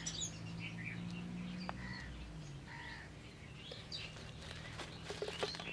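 Faint bird chirps over a low steady hum. A few light knocks about five seconds in as fried cutlets are tipped from a wire strainer onto a clay plate.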